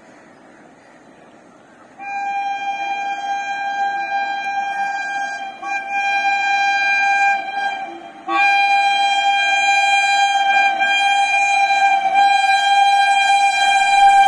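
Indian Railways electric locomotive sounding its air horn as it approaches: a loud, steady high horn note starts about two seconds in, breaks off briefly twice, then is held long to the end.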